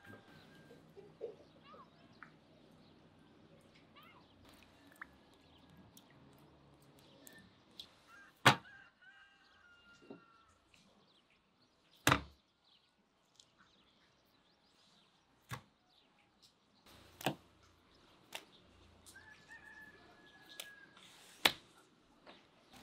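Pieces of raw meat being slapped down onto a stainless-steel tray: about five sharp smacks a few seconds apart, with smaller taps between them.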